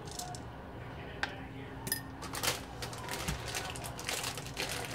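A measuring spoon clicks and clinks against a glass as slivered almonds are tipped in, the second clink ringing briefly, followed by several short rustles of the snack bag being handled.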